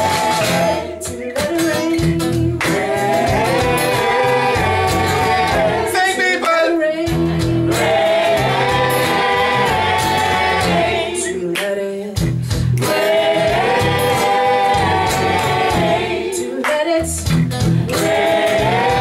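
Live band playing: a woman singing lead over acoustic guitars and electric bass.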